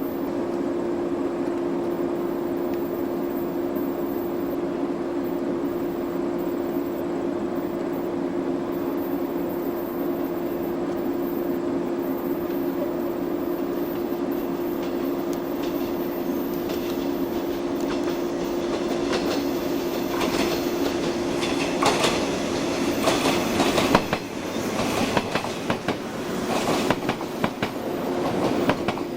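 A train running on the rails with a steady hum. Its wheels clack over rail joints and points, faint at first and growing loud and irregular near the end.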